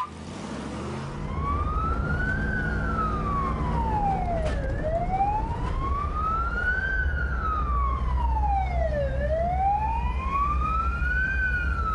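Rescue service vehicle's siren on a slow wail, rising and falling in pitch about every four and a half seconds, over the vehicle's engine rumble. It starts about a second in.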